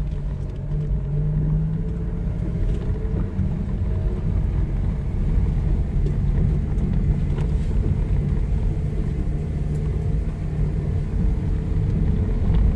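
Inside a car's cabin, driving slowly along a dirt field track: a steady engine hum over a low tyre and road rumble, with a few faint clicks.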